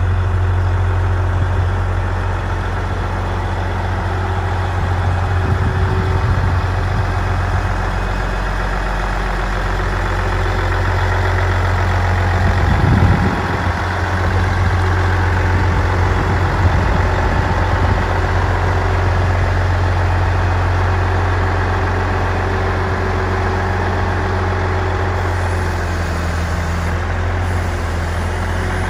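Case IH 9370 four-wheel-drive tractor's Cummins N14 six-cylinder diesel idling steadily, a deep even hum with no revving.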